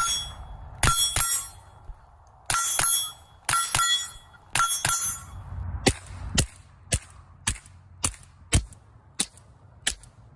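Suppressed Ruger .22 firing. In the first few seconds each shot is followed by a bright metallic ding, like a steel target ringing. From about six seconds in comes a quick string of about ten dull, sharp shots, roughly two a second, with no ring.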